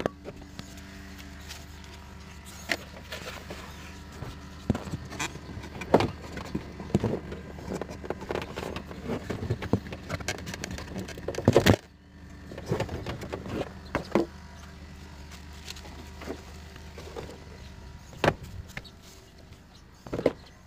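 Scattered clicks, knocks and rustles of hands handling plastic bumper parts and a wiring connector, over a steady low hum. The loudest knock comes just before twelve seconds in.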